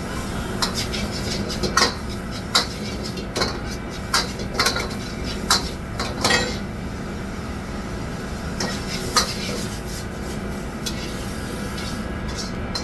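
Metal cooking utensils clinking and scraping against pots and pans in a restaurant kitchen: irregular sharp clinks, frequent at first and thinning out in the second half, over a steady low background hum.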